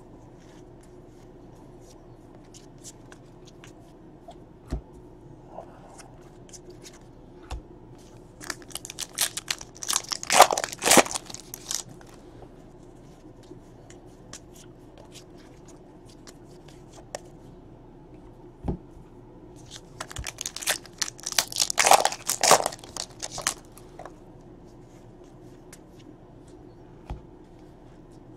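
Foil trading-card pack wrappers being torn open and crinkled, in two crackly bursts, one starting about nine seconds in and another about twenty seconds in. Between them, a few single light taps come from the cards being handled.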